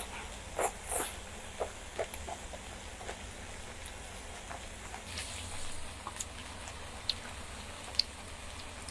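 A person chewing Korean grilled meat: scattered short wet smacks and clicks of mouth and chewing sounds, with a sharper click about eight seconds in.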